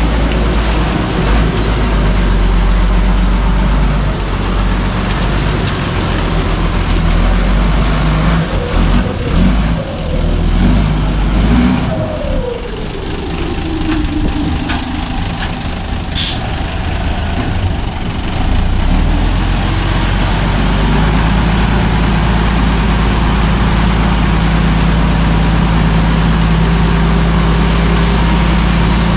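Turbocharged 270 hp engine of an Isuzu ten-wheel dump truck labouring as the truck reverses on slippery wet dirt, its revs rising and falling and then dropping away around 12 seconds in. Short air-brake hisses follow around 14 to 16 seconds in. From about 19 seconds in the engine holds a steady raised speed while the tipper bed is raised.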